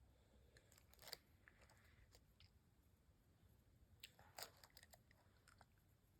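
Faint crunching and chewing of hard candy in the mouth: a few sharp crunches, the clearest about a second in and again around four seconds in.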